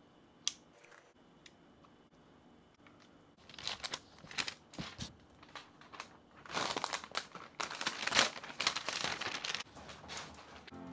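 Protective wrap being peeled off the lid of a new MacBook Pro, with crinkling and tearing in bursts. It starts a few seconds in and is loudest near the middle to late part.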